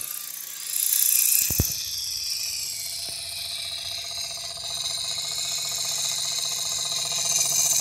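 Jensen #25 live steam engine running on about 4 psi of steam, belt-driving a small wooden-kit DC generator: a steady mechanical whir and rattle over a high hiss, louder for about a second near the start. One sharp thump about a second and a half in.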